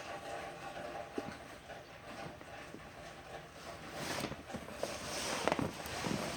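Cardboard-wrapped firework cakes and their box being handled: scattered knocks, taps and scraping, getting busier and louder about four seconds in.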